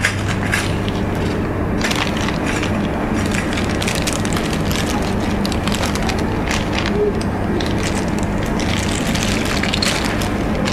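Supermarket ambience: a steady low hum under a continuous bed of scattered clicks, clatter and rustling from goods being handled, with indistinct background voices.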